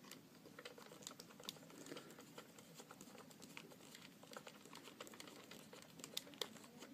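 Faint, irregular small clicks and taps of a plastic toy rifle and its putty part being handled while a screw is driven into a pre-made hole.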